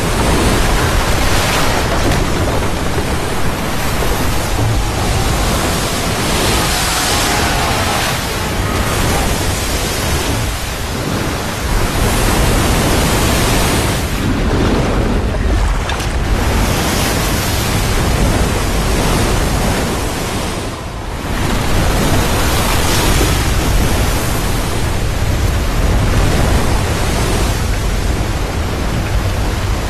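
A torrent of floodwater rushing and pouring down a rocky gorge: a loud, dense, steady rush, with brief lulls around a third of the way in and again about two-thirds in.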